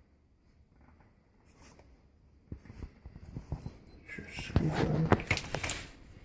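Hands handling plastic plumbing parts (PVC discharge pipe and fittings): a run of short clicks and knocks. They start a couple of seconds in and grow louder and busier near the end.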